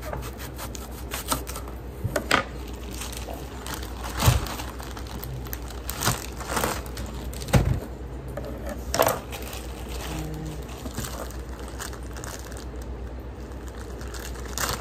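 An onion being handled and worked on a kitchen counter: scattered knocks and taps with rubbing and scraping in between, over a faint steady low hum.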